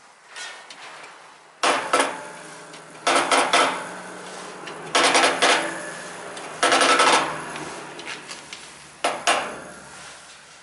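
Metal objects clinking and clanking in five short clusters of rapid knocks.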